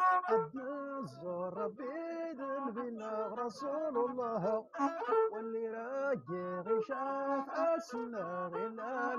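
A man singing a traditional Moroccan song in held, wavering notes, accompanied by a rribab, a one-string bowed fiddle.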